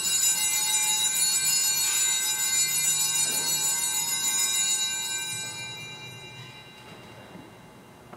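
Altar bells (Sanctus bells) rung at the elevation of the chalice after the consecration: a cluster of bright, high bell tones that sound all at once, hold for about five seconds, then fade away over the next two.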